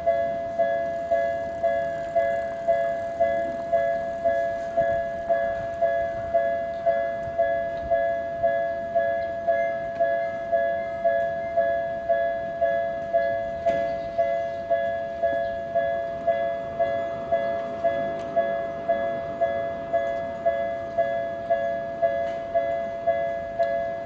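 Japanese railway level-crossing warning bell ringing steadily, a two-tone electronic ding repeating a little under twice a second, sounding that a train is coming and the barriers are down. A rumbling haze joins in the second half.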